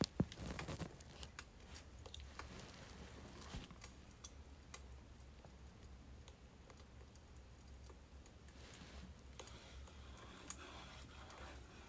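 Birch firewood crackling with sparse small snaps over a low steady hum, and soft rustling twice in the second half.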